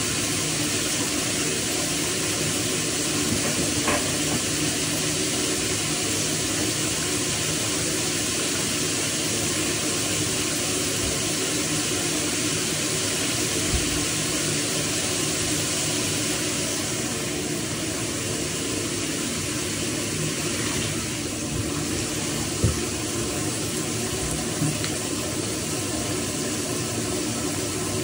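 Shower spray running steadily, a constant rush of water, with an occasional light knock.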